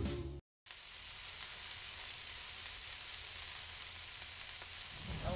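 Steady, even hiss with a faint low rumble beneath it, following a brief cut to silence about half a second in.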